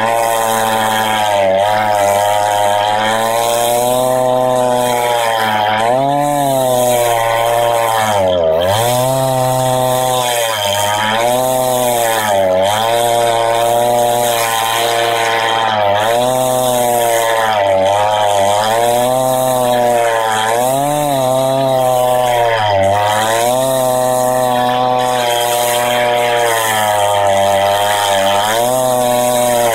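Husqvarna 390XP two-stroke chainsaw with a 28-inch bar and ripping chain, running at full throttle as it rips lengthwise through a Douglas fir log. The engine pitch sags under load and picks up again every couple of seconds as the bar is pushed through the cut.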